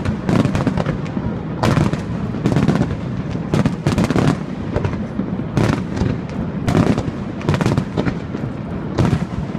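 Fireworks display: a rapid string of aerial shell bursts, bangs coming every half second or so, each echoing into a continuous low rumble.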